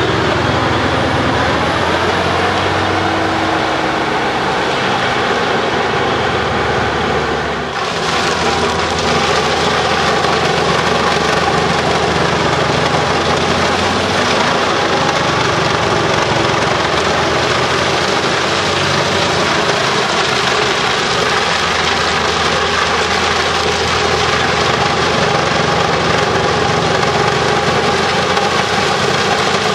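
Bruks 1006 ST truck-mounted wood chipper running under its separate 720 hp engine, a loud steady machine noise. The sound dips and changes abruptly about eight seconds in, then runs on steadily.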